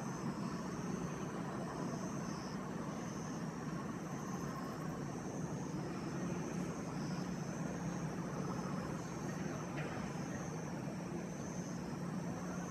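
Steady outdoor background rumble, like distant road traffic, with a faint high chirring that repeats in short pulses.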